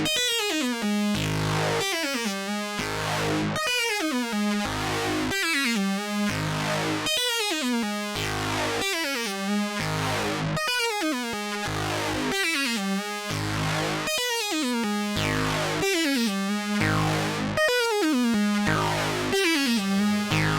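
Korg Monologue analog synthesizer played through guitar effects pedals, a repeating sequenced phrase that comes round about every 1.7 seconds, each time with a falling sweep.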